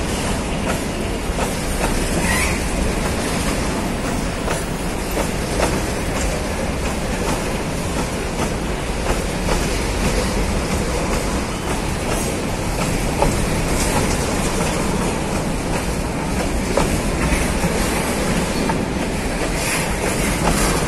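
Empty freight box cars rolling past on the rails: a steady rumble of steel wheels with irregular clacks as the wheels cross rail joints, and a short wheel squeal about two seconds in.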